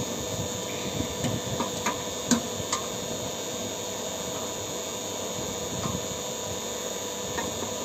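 Refrigeration vacuum pump running with a steady hum, evacuating a split air conditioner's refrigerant lines. A few light clicks of a screwdriver on the outdoor unit's terminal block come in the first three seconds.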